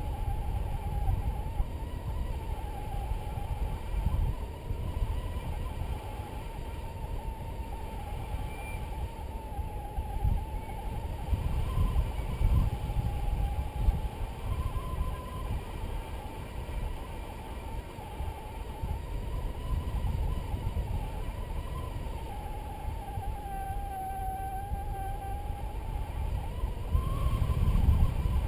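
Wind rushing and buffeting over the microphone in flight under a paraglider, growing louder near the end. Under it a paragliding variometer gives a continuous tone that drifts slowly up and down in pitch as the air rises and sinks.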